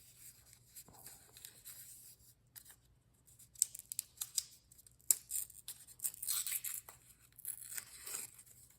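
Wrapping on a small deck of game cards being torn and pulled off: irregular rustling with sharp ticks, sparse at first and busiest over the second half.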